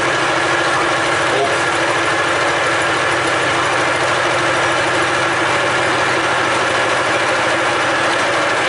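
A machine running steadily: a constant hum and whir with a low drone underneath, unchanging in level.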